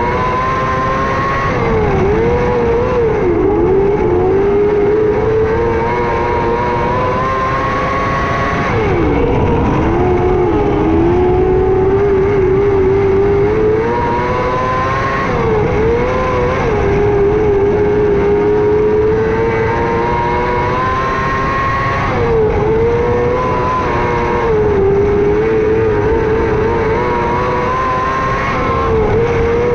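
600cc micro sprint car's four-cylinder motorcycle engine running at high revs, its pitch dipping briefly about every six to seven seconds as it lifts off for the turns of a short dirt oval, then climbing back on the straights.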